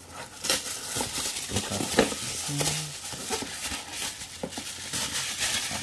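Plastic seal wrapping being peeled and crumpled off a cardboard toy box: irregular crinkling and crackling with a sharp crackle about two seconds in.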